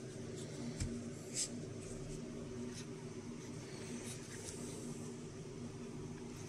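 Handling noise from a night vision monocular and a paper manual being moved on a desk: a small knock about a second in, a short rustle just after it and a few faint ticks later. A steady low hum runs underneath.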